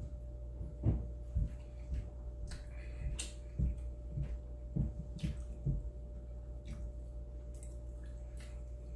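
Wet chewing and mouth sounds of a person eating spaghetti and meatballs: a string of soft, uneven low thuds through the first six seconds, with faint small ticks. A steady low hum runs underneath.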